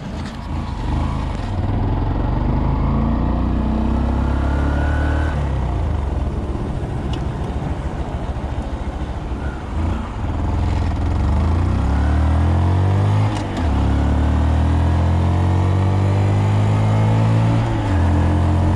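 2020 Honda Monkey's small 125 cc single-cylinder engine pulling away and accelerating. Its pitch climbs in each gear and drops at each upshift, twice clearly in the second half.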